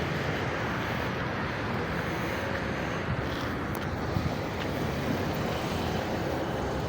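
Steady vehicle running noise with wind on the microphone and a few faint clicks.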